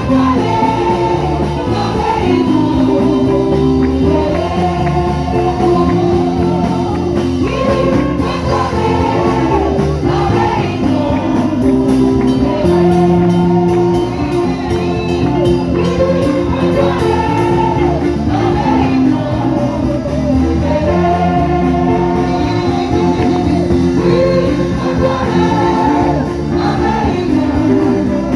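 Gospel music: a group of voices singing a melody over held keyboard and bass notes, with a steady beat.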